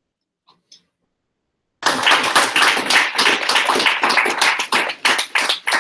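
Silence with two faint ticks, then about two seconds in a roomful of people suddenly starts applauding, dense clapping that carries on to the end.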